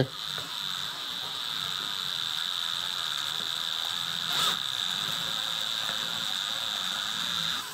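Cordless drill running at a steady speed, its bit drilling out the stripped threads of a bolt hole in a chainsaw cylinder, with a constant high whine; it stops just before the end.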